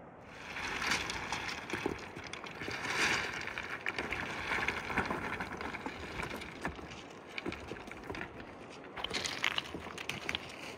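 Close, continuous rustling, scraping and crackling handling noise with many small clicks, as a person moves and handles things right at the microphone.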